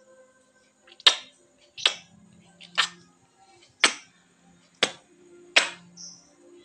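Six sharp kissing smacks of lips pressed against a mirror's glass, about one a second.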